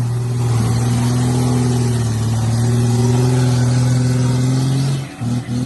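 Off-road vehicle's engine running at steady revs, then breaking up in a few short drops about five seconds in.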